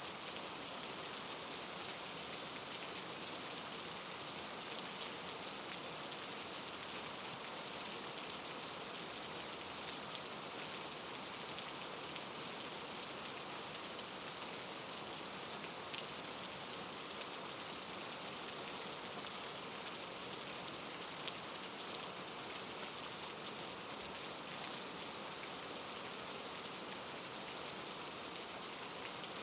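Steady soft rain falling on a surface, an even hiss with scattered individual drop ticks.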